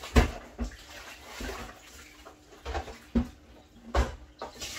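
Pots and dishes being handled while washing up at a kitchen sink: a series of knocks and clatters, the loudest right at the start.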